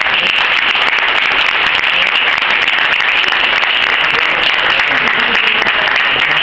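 An audience clapping their hands, many hands at once in a dense, continuous clatter.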